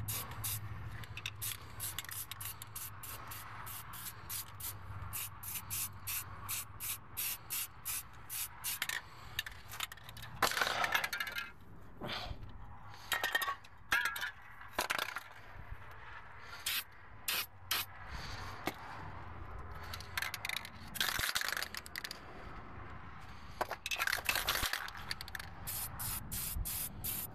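Aerosol spray-paint can being shaken, its mixing ball rattling in quick even clicks about three to four times a second, broken by a few hissing sprays about ten seconds in and twice more past the twenty-second mark.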